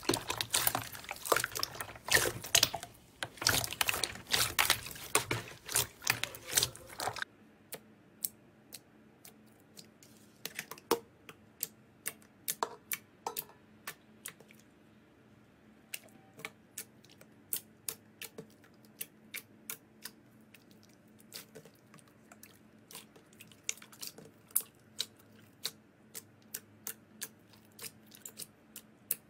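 Hands squishing and kneading clear, wet slime in a basin: dense wet crackling and squelching. After about seven seconds it changes to sparse, sharp clicking pops as fingers poke and press a thick blue slime.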